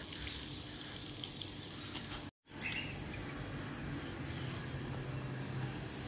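Garden hose spraying a jet of water, thumb over the end, onto sand: a steady rushing hiss. It cuts out abruptly a little over two seconds in, and a similar steady hiss carries on after the break.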